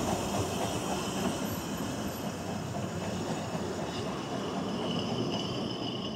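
Ffestiniog Railway narrow-gauge carriages rolling past at close range, with a steady wheel rumble on the rails. A high wheel squeal comes in about four seconds in.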